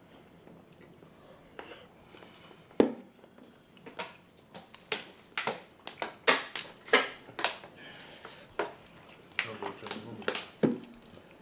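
Dishes and tableware knocking and clinking at a meal: a string of sharp, short clicks and knocks, some ringing briefly, starting about three seconds in, with voices talking in between.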